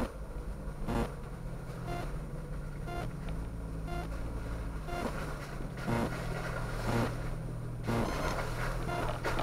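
Jeep engine running steadily at a low crawl, heard from inside the cab, with short knocks about once a second as the tyres work over the wet, rocky creek bed.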